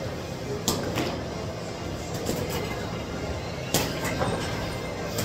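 Steady room rumble of a busy gym, broken by a few sharp knocks; the loudest knock comes about three and a half seconds in.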